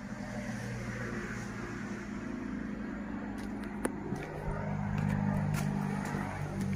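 An engine running with a steady, low pitched hum that shifts pitch partway through and swells to its loudest about five seconds in. There is one sharp click near the middle.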